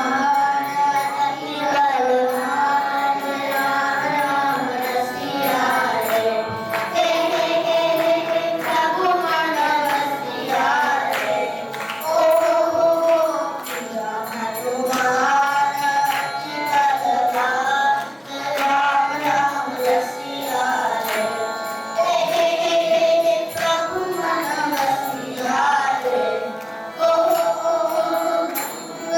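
A devotional song in Carnatic style: sung melody with long, wavering held notes over instrumental accompaniment.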